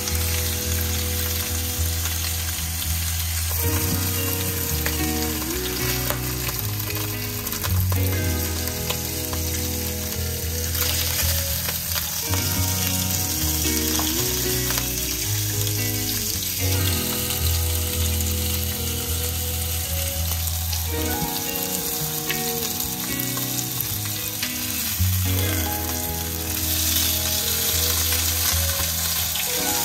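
Red fish steaks sizzling steadily as they fry in a little oil on a grill pan, over soft background music.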